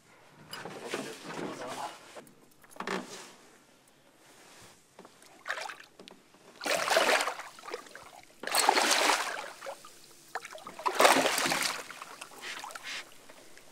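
Hooked Atlantic halibut thrashing at the surface against a boat's side, splashing water in bursts. The three loudest splashes come about seven, nine and eleven seconds in, with smaller ones early on.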